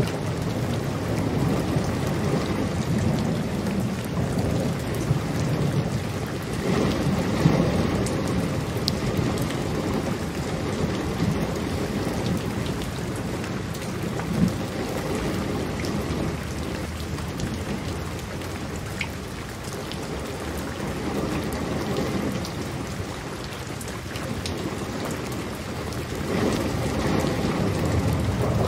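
Steady rain falling, with low rolling rumbles of thunder that swell in the first few seconds and again near the end.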